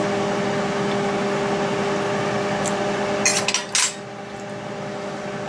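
A steady background hum with a few held tones, then, a little over three seconds in, a metal fork clatters down onto a cutting board in a couple of quick clicks, after which the hum drops quieter.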